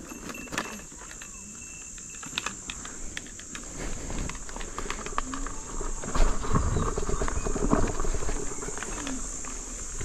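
Insects keep up a steady high-pitched drone while an electric unicycle rolls over leaf litter and twigs, giving scattered clicks and crackles. From about four seconds in, a low rumble of riding and wind builds up.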